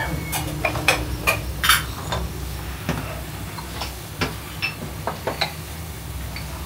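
Glazed clay dizi pots and their clay lids knocking and clinking as they are handled, a quick run of clinks in the first couple of seconds, then scattered ones.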